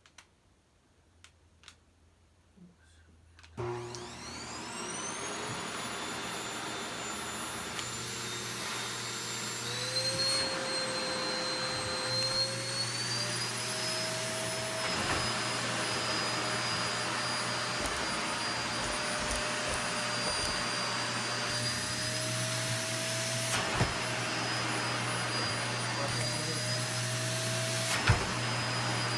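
Vacuum cleaner switched on a few seconds in after some small clicks: its motor spins up with a rising whine, then runs steadily, the pitch of the whine shifting a little as it works, with a couple of brief knocks near the end.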